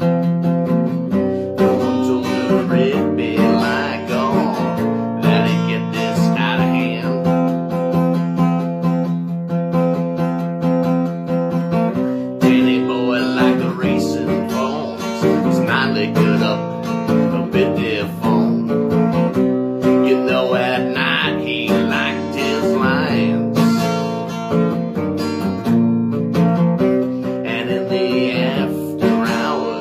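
Acoustic guitar being strummed and picked, playing a steady run of chords.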